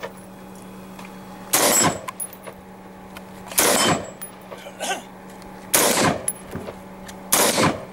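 AR-15-style rifle fired four single shots, roughly two seconds apart, each report trailing off in a short echo.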